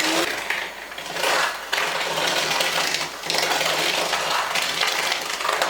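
Electric hand mixer running steadily as it beats butter, sugar and salt together for cookie dough. Its sound dips briefly about a second in and again about three seconds in.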